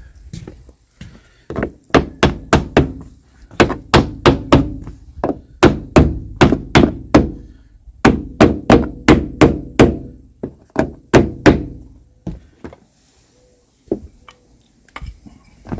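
Hammer tapping a new wooden window moulding strip into place with many quick, sharp strikes in runs of about three a second, stopping about three-quarters of the way through with a few fainter taps near the end.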